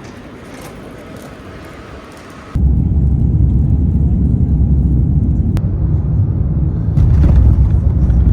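A quieter steady noise gives way suddenly, about two and a half seconds in, to a loud, steady low rumble, with a single sharp click near the middle.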